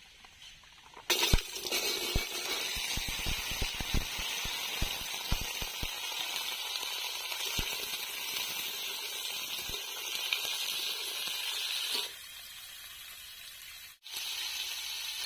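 Cut red amaranth stems (data) and potatoes tipped into hot mustard oil in a metal wok, setting off loud sizzling about a second in. A metal spatula clicks and scrapes against the wok as they are stirred. Near the end the sizzle settles to a quieter hiss, cutting out briefly twice.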